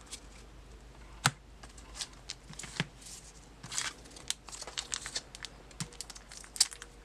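Plastic trading-card blister pack being crinkled and torn open by hand, with scattered crackles and clicks and one sharp snap about a second in.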